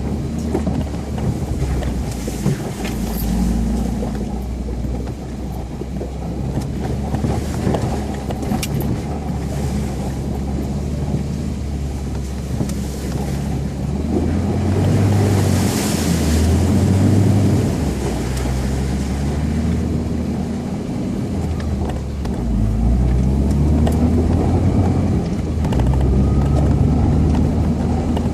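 UAZ Patriot off-road vehicle driving over rough ground, its engine running under load with the pitch stepping up and down with the throttle, and knocks from the body and suspension. A brief rushing hiss comes about halfway through.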